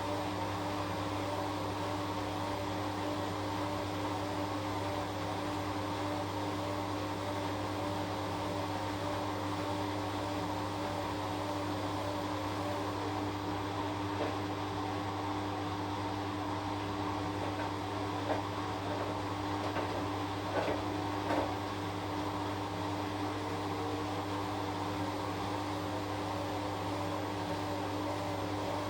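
Washing machine running: a steady motor hum with a higher whine that wavers regularly up and down, and a few faint clicks about two-thirds of the way through.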